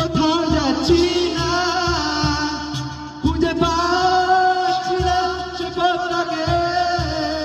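Live acoustic band: two acoustic guitars with a cajon beating out the rhythm, and a man singing long held notes.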